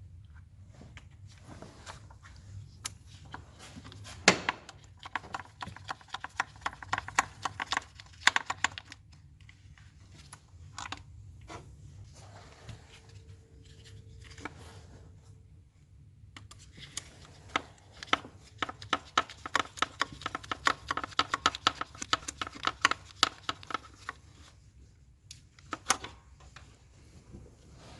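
Hand ratchet clicking in two long runs of rapid ticks while intake manifold bolts and nuts are run down, with a few separate metallic knocks in between.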